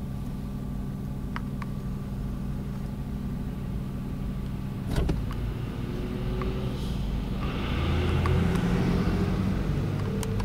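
Car engine idling steadily, heard from inside a car's cabin, with a sharp click about five seconds in. The running gets louder, with a hiss added, from about seven and a half seconds.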